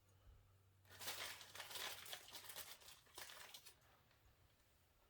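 Faint crinkling and rustling of hands handling parts, starting about a second in and lasting about three seconds.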